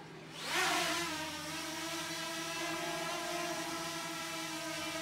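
K911 quadcopter drone's four propeller motors spinning up with a quick rising whine about half a second in as it lifts off the floor, then settling into a steady, even buzzing hum as it hovers.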